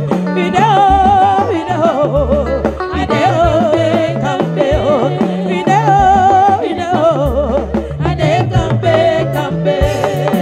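Live Igbo gospel song through a PA: women's voices singing with strong vibrato over a band's bass line and drum kit.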